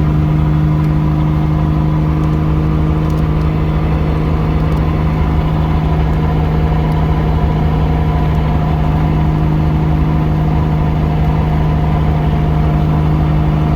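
Toyota Chaser's engine and road noise heard from inside the cabin at a steady highway cruise: a constant low drone that holds the same pitch.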